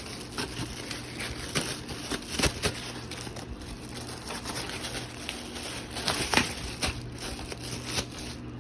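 Plastic packaging crinkling and rustling while it is handled, with irregular crackles and clicks. The loudest come about two and a half seconds in and again about six and a half seconds in.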